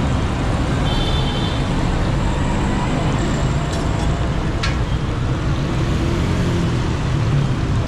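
Steady rumble of street traffic, with a couple of sharp clicks around the middle.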